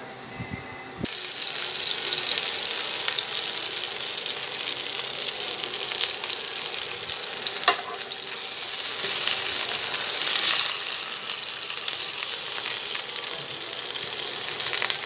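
Chicken leg quarter sizzling in hot oil in a nonstick frying pan, starting abruptly about a second in. A single sharp click about halfway through as metal tongs turn the piece.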